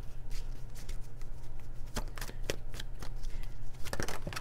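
Tarot cards being shuffled by hand, overhand, a run of soft card taps and slides with a few sharper snaps about two, two and a half and four seconds in.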